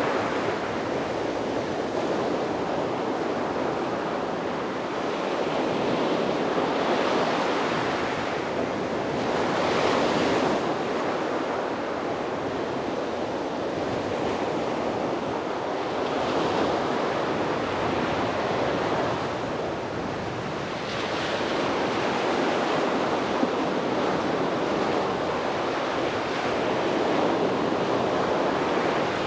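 Sea waves breaking on a beach, a continuous surf wash that swells and ebbs every few seconds, with some wind on the microphone.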